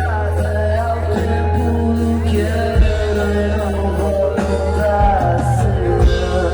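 A band playing a pop-rock song, with a steady bass line under melody lines.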